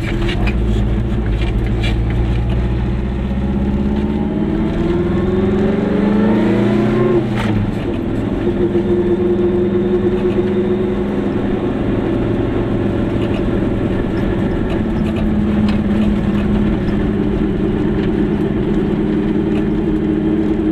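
Goggomobil's small air-cooled two-stroke twin engine running while the car drives. The engine note climbs for about three seconds, drops sharply about seven seconds in, then holds steady.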